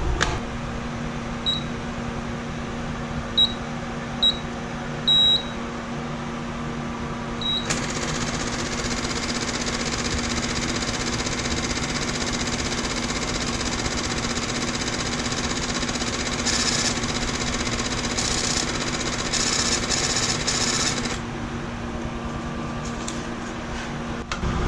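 A vehicle idling, heard as a steady low hum, with about five short high beeps in the first seven seconds. A steady hiss comes in about eight seconds in and stops a few seconds before the end.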